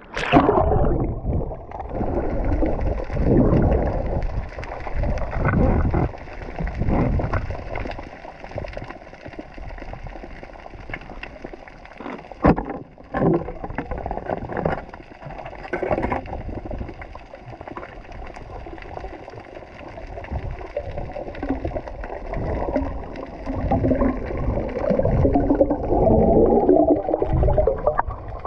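A splash as the camera goes into the sea, then muffled underwater sound heard through a waterproof camera housing: water rushing and bubbling in uneven swells as the spearfisher swims. There are a few sharp knocks about twelve seconds in.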